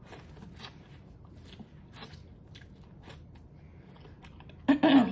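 Close-miked chewing and biting of seafood-boil food: many short wet clicks and crunches. A loud, brief hummed voice sound comes near the end.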